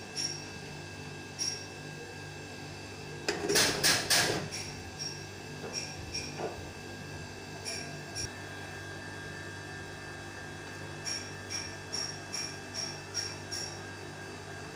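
A slotted metal spatula scraping and clinking against a metal pot as cooked biryani rice is stirred and scooped out, with a louder spell of scraping about three and a half seconds in. Near the end, a run of light, evenly spaced ticks, over a steady low hum.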